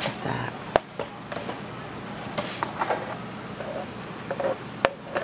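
A serving spoon scooping bread pudding out of a disposable aluminium foil pan: scraping and crinkling against the foil, with a few sharp clicks, one just under a second in and another near the end.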